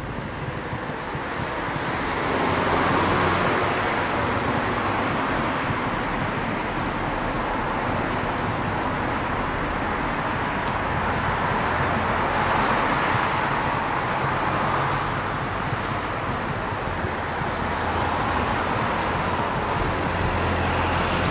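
Road traffic: cars passing one after another, their tyre and engine noise swelling as each goes by, about three seconds in, again around twelve to fifteen seconds, and near the end.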